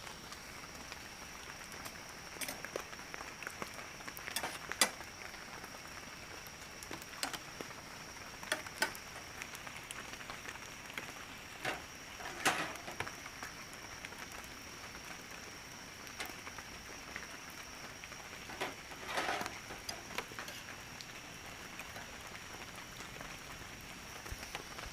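Steady rain falling, with scattered louder drops tapping irregularly, a few of them standing out sharply, and a steady high tone underneath.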